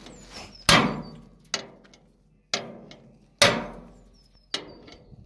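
Five hammer blows, about one a second, on the end of a hydraulic puller's ram, each a sharp metallic strike that rings briefly. The puller is held under hydraulic pressure while the blows shock the pinion loose from its shaft.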